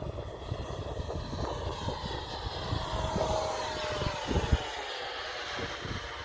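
Electric ducted fan whine of a 64mm-EDF foam-and-printed RC jet flying past, the pitch sweeping down as it passes, with wind buffeting the microphone.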